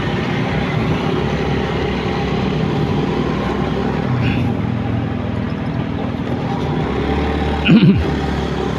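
Motorcycle engine running with the rush of road and traffic noise as the bike rides along a city street. A short, louder sound with a falling pitch comes near the end.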